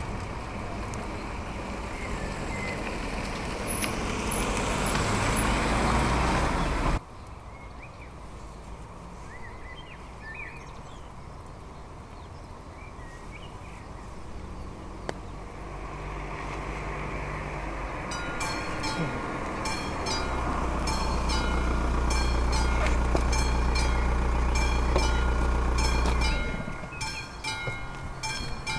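A train running past the level crossing, louder for the first several seconds and cut off abruptly. Then, about two-thirds of the way in, the crossing's warning bell starts ringing, a rapid repeated ding that goes on to the end, with a low vehicle rumble under it.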